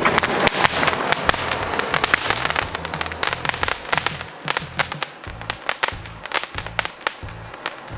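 Fancy firework crackling with many rapid, irregular small cracks throughout.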